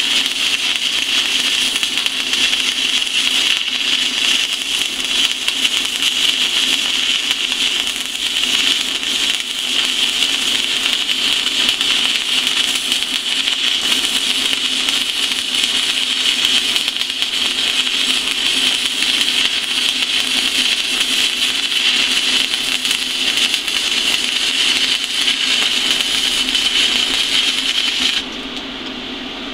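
Stick-welding arc from a 3/32-inch 7018 low-hydrogen rod at about 90 amps DC electrode positive on an AHP Alphatig 200X inverter welder, burning steadily as a bead is run: a soft arc. Near the end the arc breaks off abruptly, leaving a quieter low hum.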